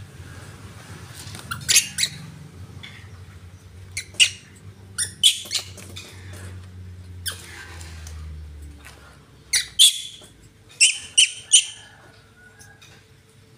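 Baby macaque giving short, high-pitched squeaks in little clusters, about a dozen in all, the last three close together near the end. A low hum sits underneath and fades out about two-thirds of the way through.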